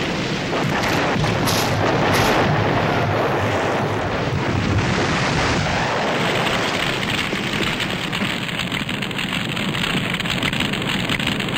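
Long, steady rushing rumble of an explosion sound effect, with no separate blasts standing out.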